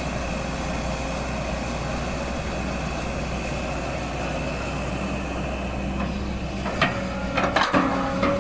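Kobelco SK200 hydraulic excavator's diesel engine running steadily with a thin hydraulic whine. Over the last couple of seconds a run of loud crunching knocks comes in as the bucket works the soil.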